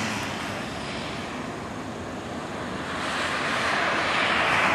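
Rushing noise of an Airbus A330-300 airliner on final approach, heard from the ground, swelling to its loudest near the end.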